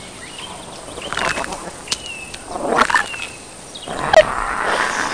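A baby dragon, a film sound effect, squeaking and chittering in several short high calls with breathy hisses between them.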